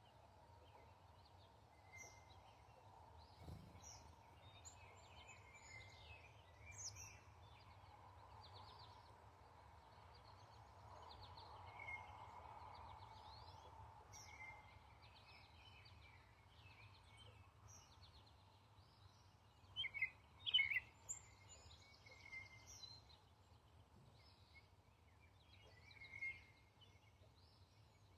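Several songbirds chirping and singing in short, overlapping phrases, with a louder cluster of calls about twenty seconds in, over faint steady background noise.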